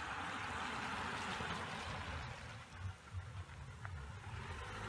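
Toyota sedan driving slowly past on a wet road: its tyres hiss over the wet pavement, and a low engine hum comes up in the second half as it draws close.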